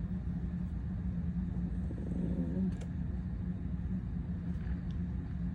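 Steady low hum and rumble, with a few faint small clicks of small parts being handled.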